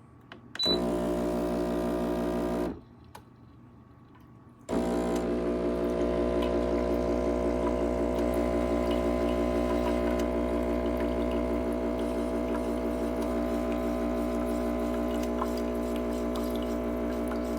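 CASABREWS 20-bar espresso machine's vibratory pump buzzing as it pushes water through. It runs for about two seconds, stops for about two seconds, then starts again and runs steadily.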